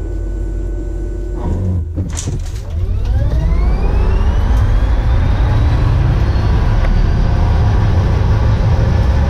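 Tesla P100D's dual electric motors launched hard from a standstill, a whine that climbs steeply in pitch from about two seconds in and then levels off as the car passes 100 mph. Heavy road and tyre rumble builds underneath, loud in the stripped-out, gutted cabin.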